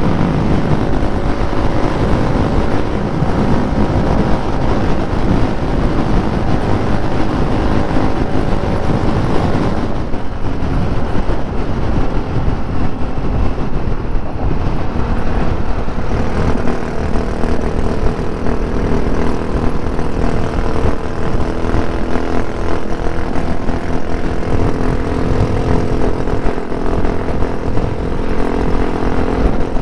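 Yamaha Majesty C scooter's engine running at steady cruising speed, heavily mixed with wind rushing over the microphone. The engine hum comes through more clearly in the second half.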